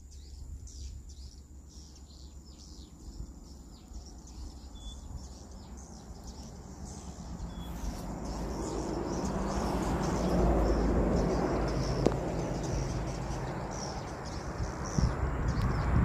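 Edible-nest swiftlets twittering in flight: short, high chirps from the circling flock. These are the birds' own calls, not the nest house's lure speaker, which is switched off. About halfway through, a broad rushing noise swells up, becomes the loudest sound, then eases off.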